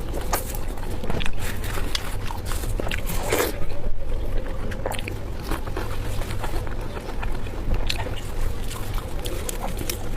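Close-miked eating and chewing: many short, irregular mouth clicks and bites over a steady low hum.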